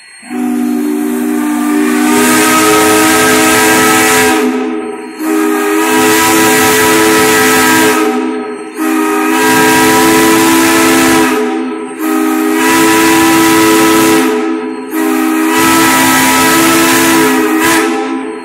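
Steam whistle of Great Smoky Mountains Railroad No. 1702, a 1942 Baldwin-built S160-class 2-8-0 steam locomotive, blowing five long, loud blasts with short breaks between them. Several notes sound together in each blast.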